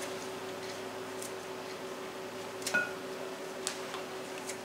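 Kitchen scissors snipping fully cooked chicken breast strips: a few faint, widely spaced clicks of the blades closing.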